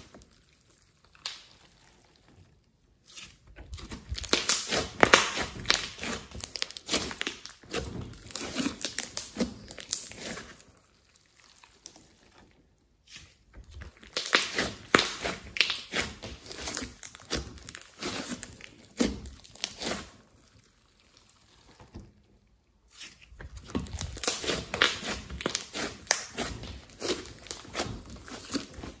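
Glossy slime mixed with clay being kneaded, squeezed and pulled apart by hand: sticky crackling, popping and squelching. It comes in bouts of several seconds with a few short pauses between them.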